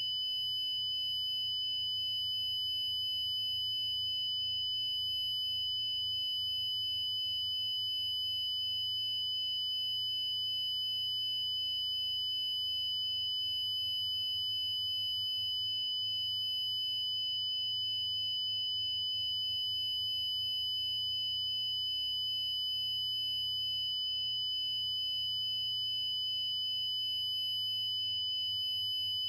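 Emergency Alert System–style electronic tone sound effect: a continuous, steady high-pitched tone held at one pitch without a break.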